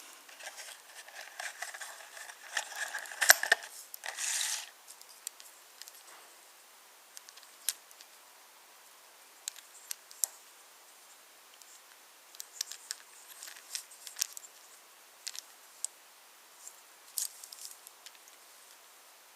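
Wooden toy trains clicking and clattering on wooden railway track: a dense run of small knocks and clacks in the first four seconds or so, then scattered single clicks.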